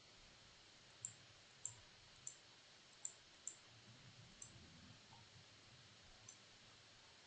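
Faint computer mouse clicks, about half a dozen spaced irregularly over the first few seconds, against near silence.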